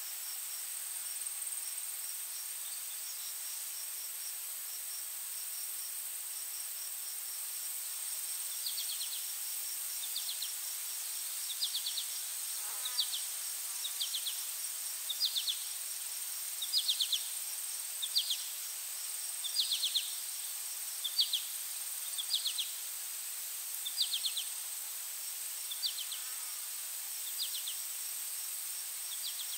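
Insects in chorus: a steady high-pitched buzz, joined about eight seconds in by rhythmic chirps, each a short pulsed trill, repeating about every one and a half seconds.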